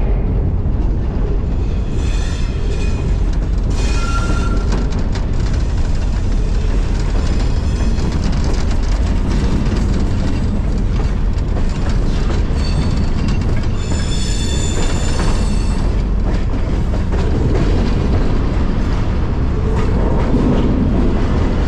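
Moving freight train heard from aboard a car: a loud, steady rumble of steel wheels on rail. High-pitched wheel squeal rings out briefly about two and four seconds in, and again for a couple of seconds around the middle.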